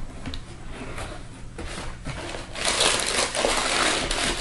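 Packaging crinkling and rustling as a shoebox is unpacked. It is faint at first and becomes a loud, continuous crinkle a little past halfway through.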